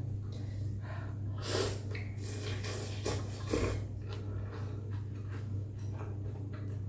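A person eating bún mắm noodle soup close to the microphone: a few short slurps and noisy breaths, the loudest about one and a half and three and a half seconds in, over a steady low hum.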